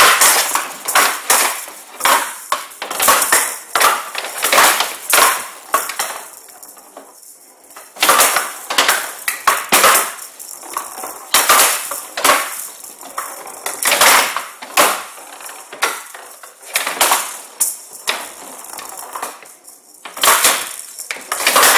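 A Showdown rally: the metal-pellet ball rattling as it is struck back and forth with wooden bats and cracks against the table's wooden side boards. Rapid sharp clacks come in runs, with a few short lulls.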